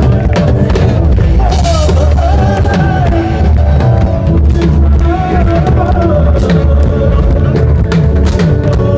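Loud rock music from a band: a drum kit keeping a steady beat under a strong bass, with a wavering sustained melody line on top.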